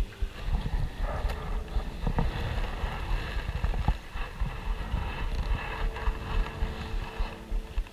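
Kayak paddle strokes splashing through the water, with wind buffeting the microphone and a couple of light knocks.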